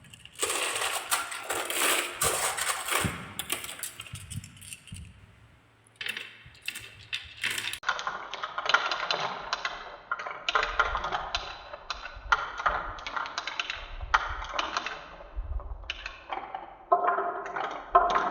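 Marbles rolling and clattering down a wooden marble run: quick runs of clicks and rattles, a brief lull about five seconds in, then steady clicking with some ringing knocks.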